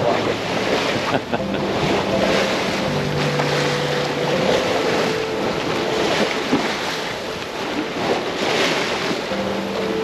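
Wind and rushing sea water aboard a sailboat under way offshore, with wind buffeting the microphone. A low steady hum comes in for a few seconds and returns near the end.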